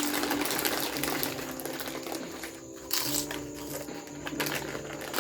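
Plastic snack wrappers crinkling and rustling in irregular bursts while snacks are eaten.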